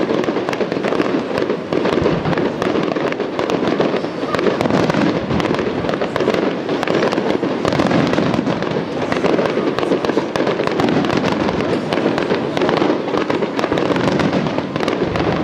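Aerial fireworks display going off in a dense, continuous barrage: overlapping bangs and crackling shells with no pause between them.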